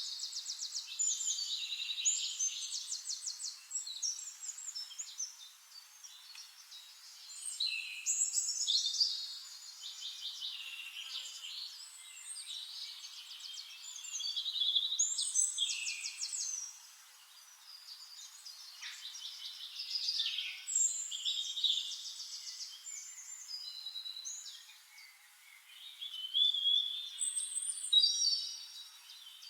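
Several songbirds singing over one another in a dawn chorus: rapid high trills and chirping phrases that swell in bursts every few seconds.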